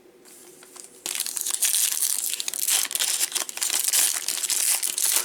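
Plastic wrapper of a baseball card pack crinkling as it is torn open and handled, starting about a second in and going on as a dense crackle.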